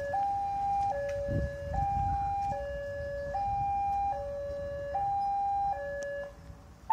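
Railway level-crossing warning alarm sounding a two-tone electronic high–low signal, each tone held just under a second, as the crossing barrier lowers to warn of an approaching train. It stops a little before the end.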